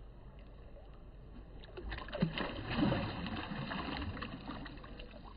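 Water splashing and sloshing as a released smallmouth bass kicks free of a hand at the surface and swims off, starting about two seconds in after a quiet lapping start.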